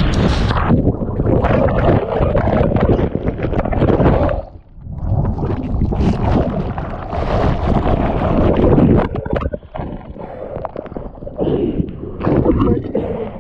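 Breaking wave and whitewater rushing and churning around an action camera in its waterproof housing, with wind and water buffeting the microphone. The sound drops out briefly about four and a half seconds in, then churns again and settles into choppier fizzing and splashing of foam near the end.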